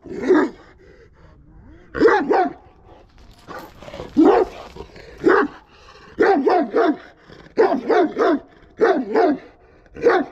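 Kangal shepherd dog barking in repeated bouts of two or three quick barks, about every second or two.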